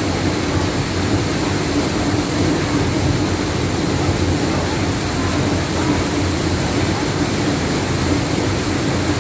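Waterfall: a steady, loud rush of falling water with no breaks or changes.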